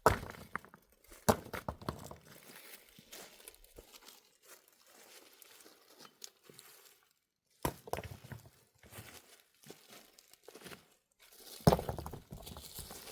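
Irregular rustling and crunching handling noise with scattered knocks, in bursts that come and go. The loudest bursts are about a second in, near eight seconds and near the end.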